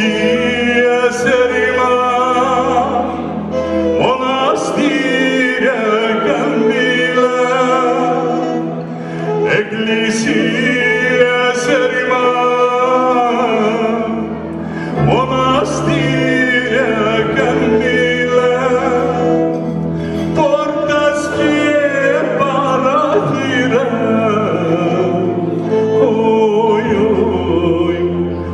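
A man singing a Pontic Greek folk song in long, wavering, ornamented phrases, with instrumental accompaniment over a sustained low drone.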